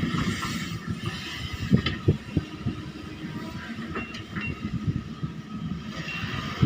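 Excavator working: its engine runs under a dense, irregular clatter of metal knocks, with a few louder clanks in the middle.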